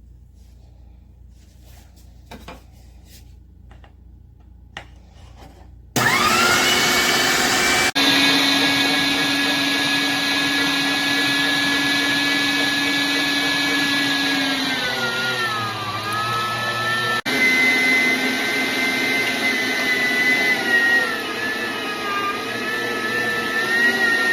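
Electric meat grinder motor running with a steady whine, starting abruptly about six seconds in after a few faint clicks. Its pitch dips and wavers briefly partway through, and the sound breaks off for an instant twice.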